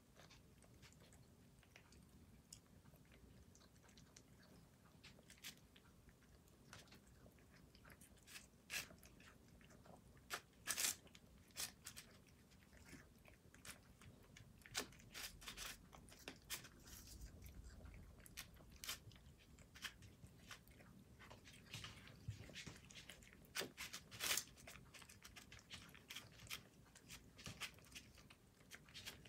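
Cats chewing and crunching small dried anchovies: faint, irregular crunches with a louder bite now and then.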